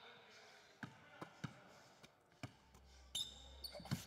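Basketball bouncing a few separate, irregular times on a hardwood gym floor, then sneakers squeaking on the court as play picks up near the end.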